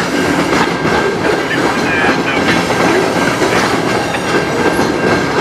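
Freight train of covered hopper cars rolling past at a steady speed, its steel wheels clacking over the rail joints.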